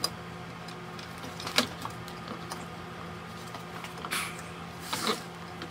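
Gloved hands handling a UPS's battery cables and sheet-metal battery bracket: a few sharp clicks and knocks, the loudest about a second and a half in, and two short scraping rustles near the end, over a steady low hum.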